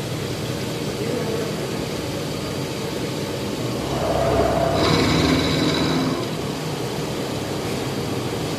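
Haas CNC milling machine running steadily, getting louder for about two seconds midway with a whining tone before settling back.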